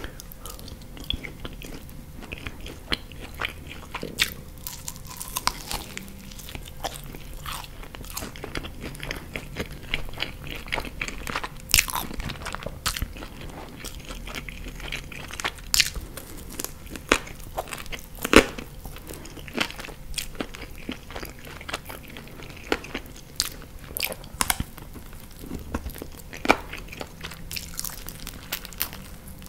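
Close-miked chewing and biting of sauced chicken wings: wet mouth sounds broken by irregular sharp crunches and clicks, a handful much louder than the rest.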